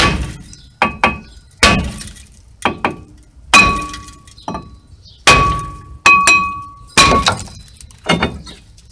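Hammer blows on a stuck 2012 Kia Soul front brake rotor, about ten in a row roughly a second apart, to knock it off the hub. Each blow is a sharp metallic clang, and the cast-iron rotor rings briefly after it.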